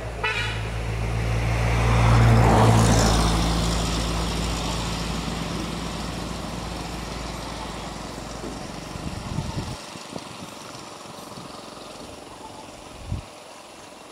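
A motor vehicle's engine passing by: a steady hum that swells to its loudest about two to three seconds in, then fades and drops away about ten seconds in. A single low thump near the end.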